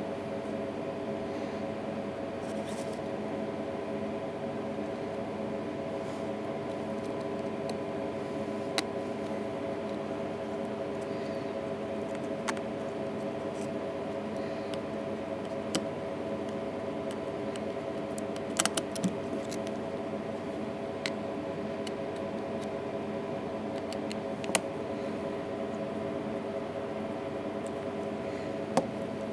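Small sharp clicks of tools and phone parts being handled during an iPhone 3GS battery swap, about eight of them scattered apart, two close together about two thirds in. Under them runs a steady hum with several tones.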